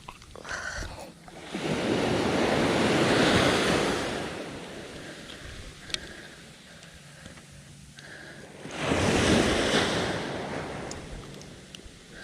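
Ocean surf breaking on a beach: two waves crash, one about a second and a half in and another about nine seconds in, each swelling quickly and then washing out slowly.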